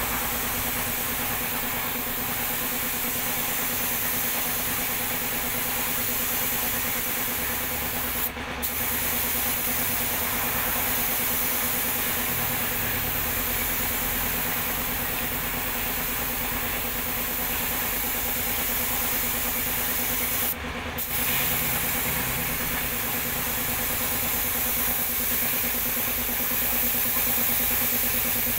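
Compressed-air paint spray gun hissing steadily as it sprays, with a steady hum from the air compressor beneath. The hiss cuts out for a moment twice, about a third of the way in and about three-quarters through, as the trigger is let go.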